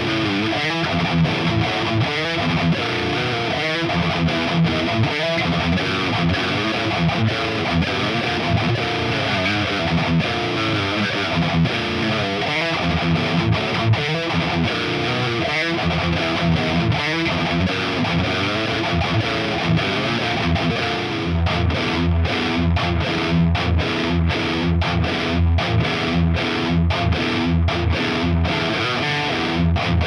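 1987 Charvel Model 6 electric guitar played with distortion through a modded 1978 Marshall Super Bass head and a Marshall Mode Four cab with Celestion G12K-100 speakers. A busy riff-and-lead passage turns, about two-thirds of the way in, into a low, chugging riff of short repeated notes.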